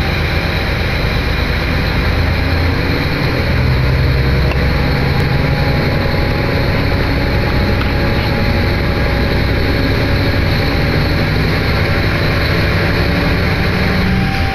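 Diesel railcar engine idling at a station platform: a steady low rumble with an even hum that rises slightly near the end.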